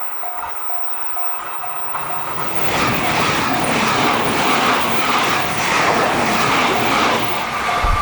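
Railroad crossing warning bell dinging about twice a second as a train passes through the crossing. From about two and a half seconds in, the train's running noise with a rhythmic wheel clatter rises over the bell and nearly drowns it. A low thump comes near the end.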